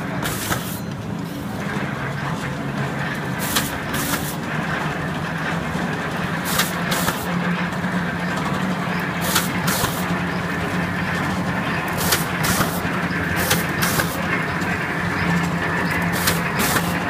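A combined slotter for corrugated carton board running, with a steady low hum and a faint high whine. From a few seconds in, sharp clicks come singly or in quick pairs every second or two.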